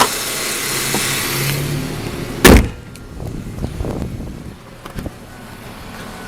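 Car hood slammed shut about two and a half seconds in, over the 2001 Ford Mustang's 3.8 V6 running at idle; after the slam the engine sounds much quieter and muffled under the closed hood.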